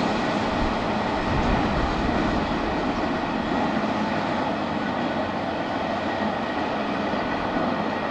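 Double-stack container train's well cars rolling away on the rails, a steady rumble and rattle of wheels that slowly fades as the last car moves off.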